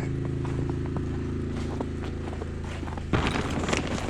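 Fremont MEP-831A single-cylinder diesel generator running steadily under a heavy load. About three seconds in, footsteps crunching through snow start up over it.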